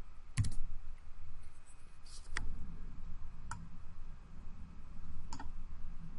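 A few sparse, sharp clicks from a computer keyboard and mouse: one about half a second in, as the typed command is entered, then single clicks about two and a half, three and a half and five and a half seconds in, over a faint low room hum.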